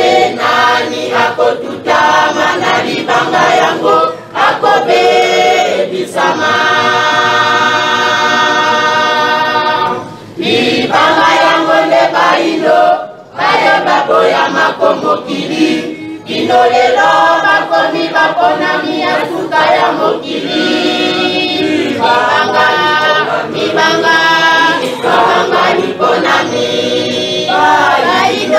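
A group of voices singing a hymn together without instruments, in phrases with short breaks and one long held note about six seconds in.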